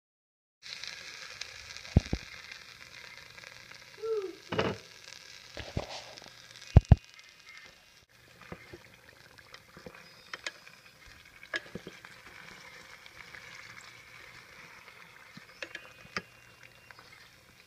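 Barbecue sauce sizzling and bubbling around pork ribs in a slow cooker's crock, a steady hiss. It is broken by a few sharp knocks, the loudest a double knock about seven seconds in.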